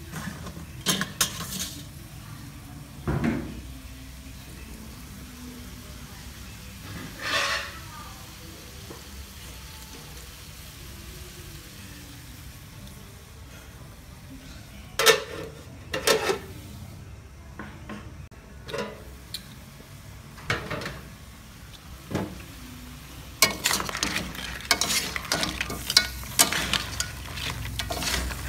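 Crab sizzling in an aluminium wok, with scattered clinks and knocks of a metal spoon against the pan. In the last few seconds the clinks come thick and fast as the crab is stirred.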